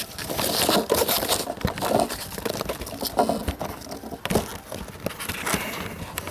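Packaging being handled and opened: irregular crinkling and rustling with many small clicks and snaps.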